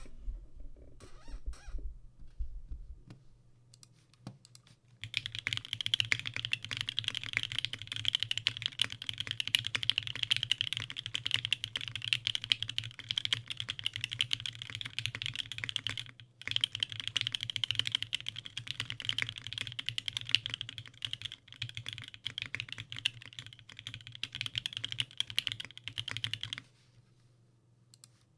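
Fast, continuous typing on a keyboard, a dense run of rapid clicks that starts about five seconds in, breaks off briefly near the middle, and stops a couple of seconds before the end, over a faint low hum.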